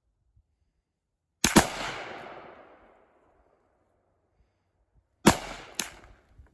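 Gunshots: two in quick succession about a second and a half in, followed by a long echoing tail, then two more about half a second apart near the end.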